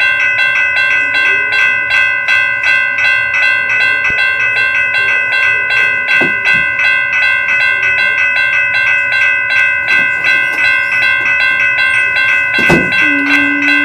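Toy railroad crossing signal's electronic bell dinging steadily in a rapid, even rhythm while its red warning light flashes. Near the end there is a knock, followed by a short low steady tone.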